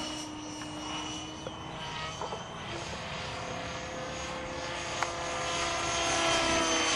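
Electric Swift 16 RC helicopter in flight: its brushless motor and rotor blades give a steady whine, growing louder near the end.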